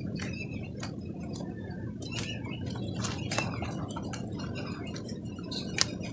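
Hands squeezing and kneading thick wet red-dirt mud: irregular wet squelches with small pops and clicks, and one sharper pop near the end.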